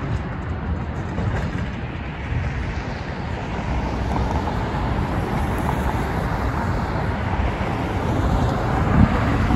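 Road traffic on a multi-lane street: a steady rush of passing cars' tyres and engines, getting a little louder near the end as vehicles pass close.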